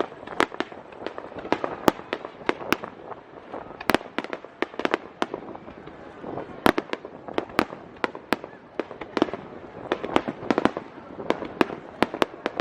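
Fireworks display: aerial shells bursting with many sharp bangs in quick, irregular succession, several a second, over a steady rumble.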